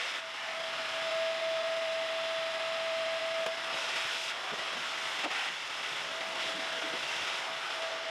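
Vacuum cleaner running, its nozzle sucking drill shavings off an acrylic shower pan: a steady rush of air with a thin whine that drops out about halfway through and returns near the end, and a few small ticks.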